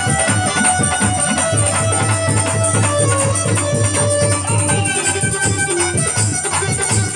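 Instrumental passage of a South Asian Sufi folk song: a fast, steady drum rhythm with jingling rattle or tambourine and a melody line over it, without singing.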